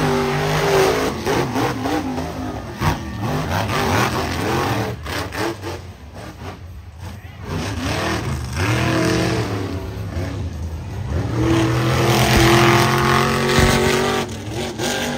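Monster truck V8 engines revving hard in a side-by-side race, their pitch climbing and falling with the throttle. The engines drop back for a moment about halfway through, then hold a long, steady high rev near the end.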